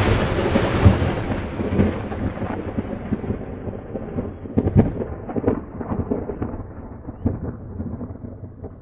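Thunder sound effect rumbling with scattered crackles under an animated logo intro. It slowly fades and dulls after a sudden clap just before this.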